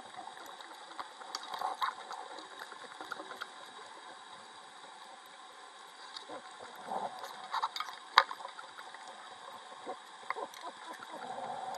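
Underwater sound: a steady hiss with scattered small clicks and knocks, the loudest a single sharp click about eight seconds in, and a few faint muffled sounds carried through the water.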